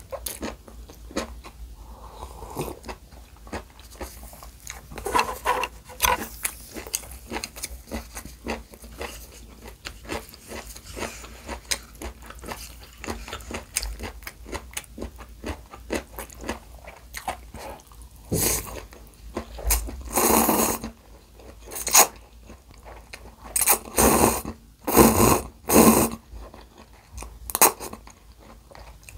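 Close-miked eating sounds: steady chewing of seaweed-wrapped gimbap with many small wet clicks. In the second half come several louder slurps from a cup noodle cup, the loudest a little after two-thirds of the way in.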